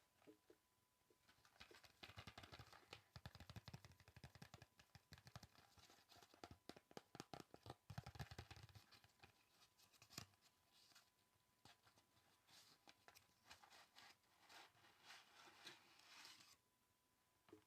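Quiet, close-up ASMR tapping and scratching: fast runs of light taps and scratches, densest from about two to nine seconds in, then sparser.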